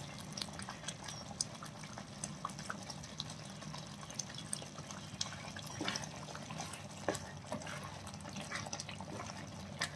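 Thick prawn and tomato curry simmering in a kadai, bubbling with small scattered pops and blips over a low steady hum.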